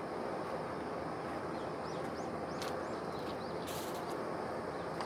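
Steady outdoor background rush with several short bird chirps about two to three seconds in.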